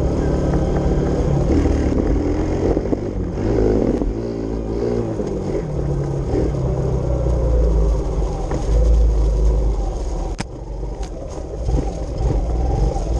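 Kawasaki KLX110 pit bike's single-cylinder four-stroke engine running under way on a dirt trail, its pitch rising and falling as the throttle is worked, over a steady low rumble.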